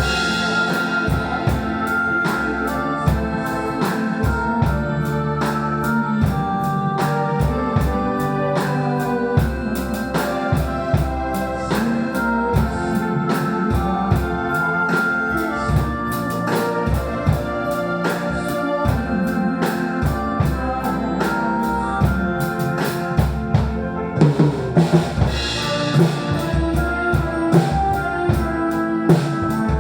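Drum kit played along to a recorded backing track: steady kick and snare hits over sustained organ-like keyboard chords.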